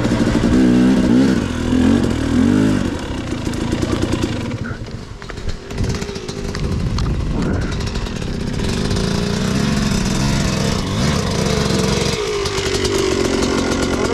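Two-stroke dirt bike engines running. In the first few seconds one revs up and steps through gear changes, and from about midway a steadier engine note rises and falls a little with the throttle.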